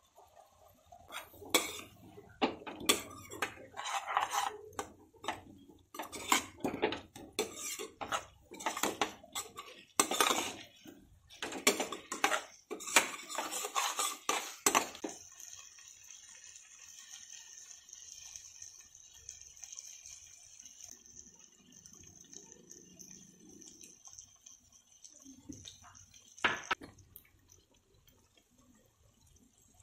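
Spatula scraping and clanking against a kadai as vegetables in liquid are stirred, dense and uneven for about the first fifteen seconds. Then a steady faint high hiss, broken by a single knock near the end.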